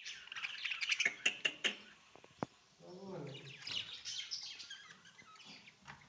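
Budgerigars chirping and chattering, with a few sharp clicks in the first two seconds.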